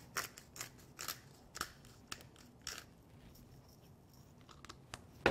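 Coarse-ground black pepper being shaken from a pepper bottle over a salad bowl. It gives dry, rattling shakes about twice a second, which get fainter and sparser after about three seconds. A sharp knock comes at the very end.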